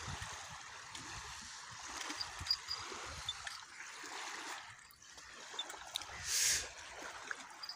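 Small waves lapping and trickling against the reservoir shore, a steady watery wash with a few small clicks and a short louder hiss about six and a half seconds in.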